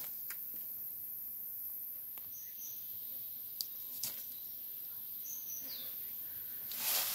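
A few short, high bird chirps, one sliding down in pitch, over a steady high hiss. Light clicks and, near the end, a rustle of leaves and twigs as a green plum is pulled from the branch.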